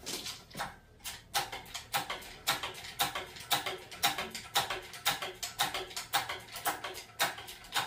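Hydraulic engine hoist being pumped to raise a hanging engine and transmission: a steady run of short metallic clicks and clanks, about two to three a second.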